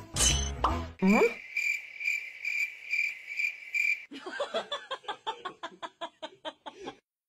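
Cricket chirping: a steady high chirp pulsing about three times a second for nearly three seconds, after a quick rising whistle at the end of the music. Then a run of short, rapid pulses that fades away.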